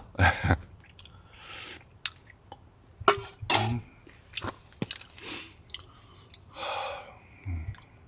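A person eating: chewing and short breathy, throaty sounds, with a few light clicks.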